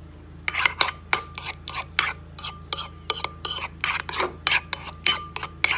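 Metal spoon stirring and scraping a thick mayonnaise-and-ketchup sauce in a ceramic bowl. It makes quick repeated scrapes and light clinks against the bowl, about three strokes a second, starting about half a second in.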